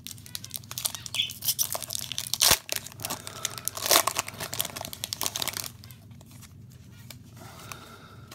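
Foil wrapper of a Pokémon trading card booster pack being torn open and crinkled, a dense crackling with sharp tearing loudest about two and a half and four seconds in. The crinkling dies down about two-thirds of the way through.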